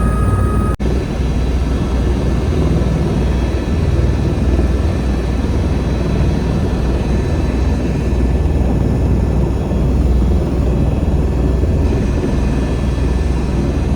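Helicopter engine and rotor noise heard from inside the cabin during flight: a loud, steady rumble. It cuts out for an instant about a second in.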